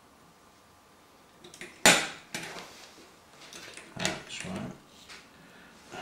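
Metal clicks and clatter of an LGA 1155 CPU socket's load plate and retention lever being pressed down over a Core i7. A sharp click about two seconds in is the loudest, followed by several lighter clicks and knocks.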